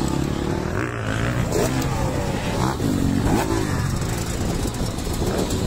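Motocross dirt bike engines revving up and down, their pitch rising and falling again and again over a steady low rumble.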